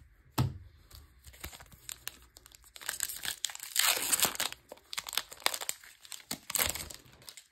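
A foil Magic: The Gathering booster pack wrapper crinkling and tearing as it is handled and opened, in irregular crackles that are loudest a few seconds in and again near the end.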